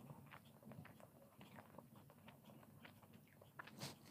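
Faint chewing with many small mouth clicks, from someone eating syrupy boondi off a spoon. A sharper click comes near the end.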